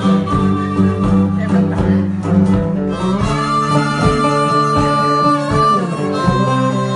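Small live blues band playing: a three-string cigar box guitar tuned GDG and a second guitar keep a steady plucked rhythm while a harmonica plays lead, holding one long high note in the middle.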